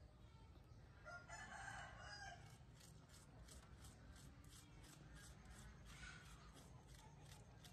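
A rooster crows once, faintly, about a second in, the call lasting about a second. After it, a metal spoon scrapes the flesh of an apple half in soft, even strokes, about three a second.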